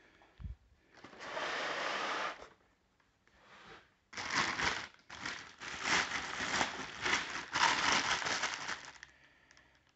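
Clear plastic bag crinkling as it is handled and pulled back off a boxed aluminium cylinder head: one stretch of crinkling about a second in, then a longer, near-continuous spell from about four seconds in until near the end.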